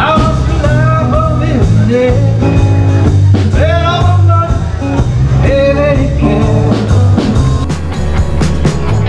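Live rock-blues music: a voice singing over acoustic and electric guitar, in sung phrases with short gaps between them.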